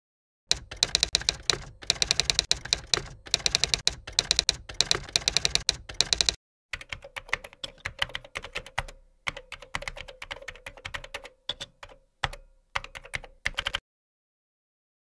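Typewriter sound effect: rapid runs of key clacks, one of about six seconds and, after a short break, another of about seven seconds with a few gaps in it.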